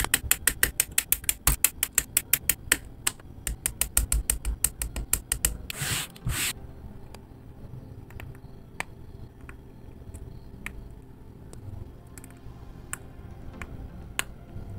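Plastic model-kit parts being clipped from the sprue with side cutters: rapid sharp clicks, several a second. A brief rustle comes about six seconds in, then scattered single clicks and snaps as the small plastic parts are pressed together.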